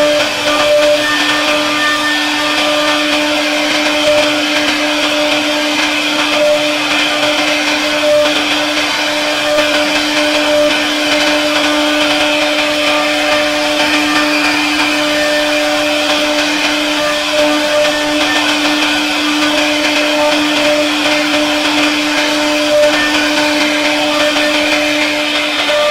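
CNC router spindle running at a steady speed, its bit carving a relief pattern into a wooden door panel: a constant whine over the hiss of the wood being cut.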